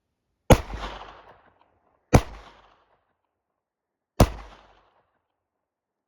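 Three single shots from a Kimber 1911 pistol in 9mm, spaced about one and a half and two seconds apart, each trailing off in a short echo.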